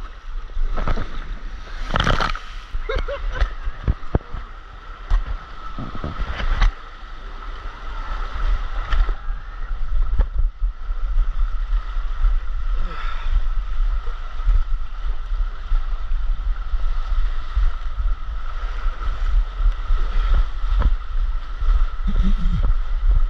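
Water rushing along a water slide with a low rumble, as a rider slides down, with scattered knocks.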